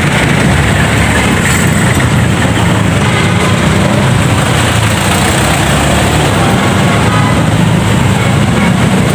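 Motorcycle under way: steady engine and road noise with a loud, continuous low rush of wind buffeting the microphone.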